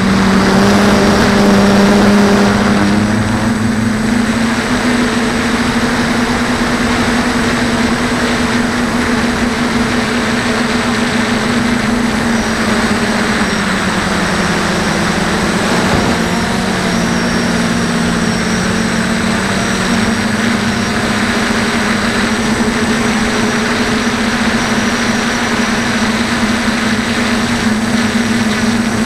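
DJI F450 quadcopter's motors and propellers whining steadily, heard through its onboard camera over a steady rushing noise. The pitch swells briefly in the first couple of seconds, then sinks lower for a few seconds around the middle before settling back.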